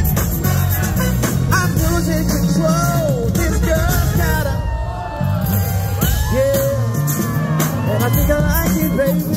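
Loud live concert music: a band and backing track play an R&B song while a singer sings over it. The bass drops out briefly about halfway through, then comes back in.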